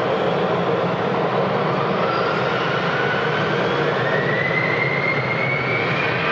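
Jet aircraft engines running with a steady rush, a turbine whine rising in pitch from about two seconds in as the engines spool up.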